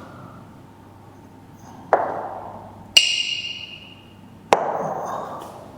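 Three sharp percussive hits over about two and a half seconds, each dying away over a second or so; the middle one has a bright, ringing ping.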